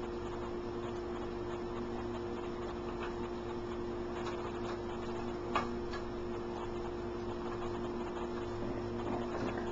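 Eggs frying in a skillet on an electric stove: light crackling and ticking over a steady hum, with one sharper tick about five and a half seconds in.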